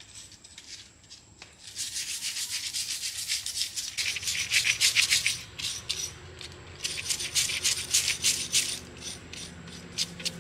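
Quick back-and-forth rubbing strokes by hand, several a second, as when sanding or scrubbing a part, coming in three bursts with short pauses between them.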